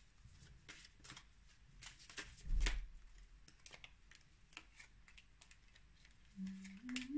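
Oracle cards being shuffled by hand, with light clicks and flicks of card against card and a louder soft thump about two and a half seconds in. Near the end a woman hums a few notes while cards are dealt down.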